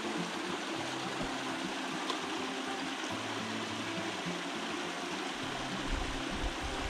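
Small mountain creek trickling steadily over rocks into a pool, a constant soft water hiss, with a low rumble coming in near the end.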